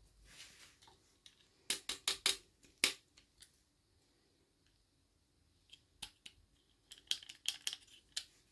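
Small objects being handled during a toy unboxing: a quick run of sharp clicks and snips, about five of them around two to three seconds in, then another cluster of lighter clicks near the end.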